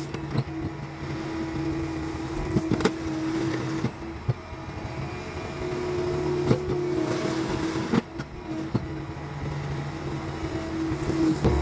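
Bobcat compact track loader running while it pushes and spreads crusher run gravel with its bucket. A steady machine hum fades and returns a few times, and scattered short clicks and knocks come through.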